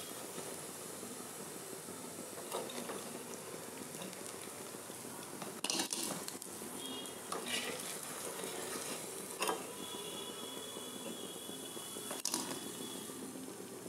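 Hot oil sizzling in a karahi as fried lentil fritters are lifted out with a perforated metal slotted spoon, which clinks against the pan and the bowl several times.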